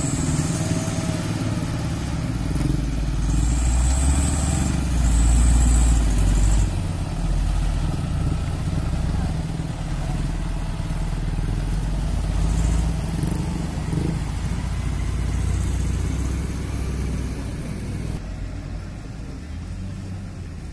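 Diesel engines labouring under load: a Mitsubishi Fuso Canter truck loaded with oil palm bunches struggling in mud while a wheel loader pushes it from behind. A deep steady rumble that swells a few seconds in and drops lower near the end.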